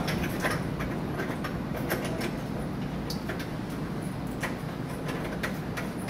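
Service cap being screwed by hand onto the service port of a tankless water heater's brass isolation valve: a scatter of small sharp metallic clicks over a steady low hum.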